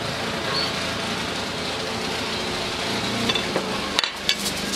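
Steady background hiss, then a few sharp clicks and knocks about four seconds in: a glass olive-oil bottle and utensils being handled on a wooden table.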